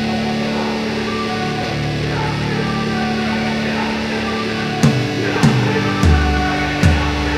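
Background music: a rock track with sustained electric guitar chords, and a drum beat coming in about five seconds in.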